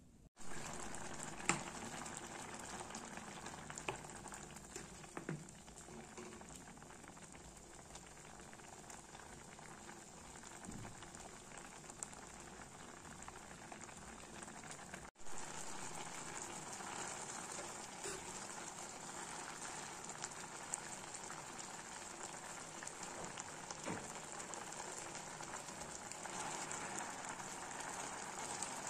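Chillies, tomatoes and fish bubbling and sizzling in oil and water in a wok, with scattered sharp pops. The sound cuts out briefly about halfway.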